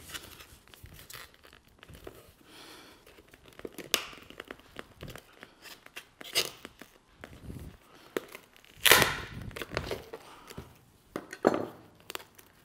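Double-sided tape tearing and plastic creaking as a thin scraper pries a plastic cubby box lid off its leather-covered pad. Scattered scrapes and clicks, with the loudest rip about nine seconds in.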